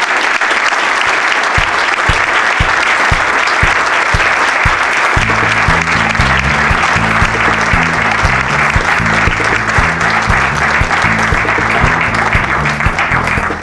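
Audience applauding steadily, with music coming in under it: a beat at about two thumps a second from about a second and a half in, and a bass line from about five seconds in.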